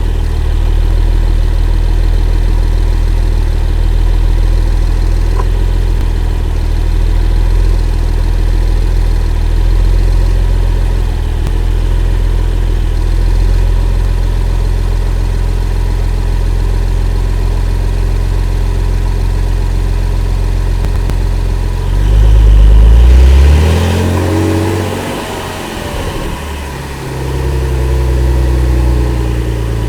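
Sports car engine idling steadily, then blipped once about three-quarters of the way through: the pitch rises quickly, falls back and settles into idle again.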